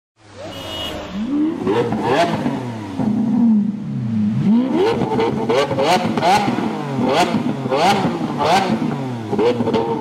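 A parked sports car's engine being revved. First comes one slower rise and fall in pitch, then from about halfway through a run of quick throttle blips, each a sharp rise and drop in pitch, less than a second apart.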